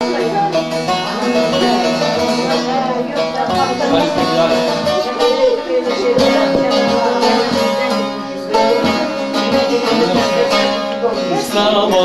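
Two bağlamas (long-necked Turkish saz lutes) playing together, plucked and strummed in quick strokes: the instrumental opening of a Turkish folk song before the voice comes in.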